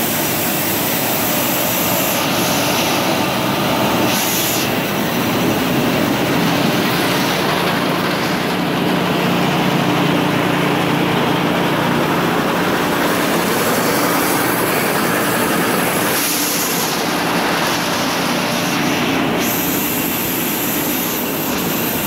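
Corn roller mill and its feed auger running, a loud steady machinery noise as corn is rolled.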